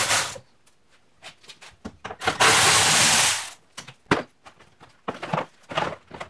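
Cordless electric ratchet turning bolts on a radiator fan assembly, running with a high whine briefly at the start and again for about a second and a half from about two seconds in. Then short knocks and rattles as the plastic fan shroud and coolant reservoir are handled.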